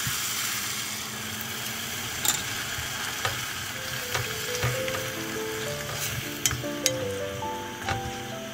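Pork and kimchi sizzling in a cast-iron pot as a wooden spoon stirs them, knocking against the pot several times. Background music with a simple melody comes in about halfway.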